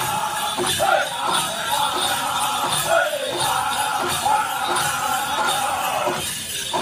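Powwow drum group singing a chicken dance song in high voices over a beaten drum. The singers break off briefly near the end before the next phrase starts.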